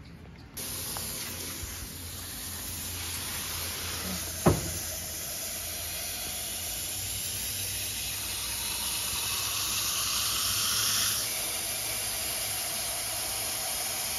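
Water tap turned on and running steadily with a hiss. There is one sharp knock about four seconds in, and the hiss softens a little near the end.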